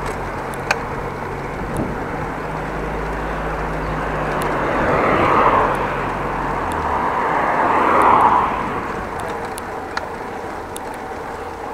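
Road traffic: two vehicles pass close by, their tyre noise swelling and fading about five and eight seconds in, over steady road noise. A low steady hum stops partway through.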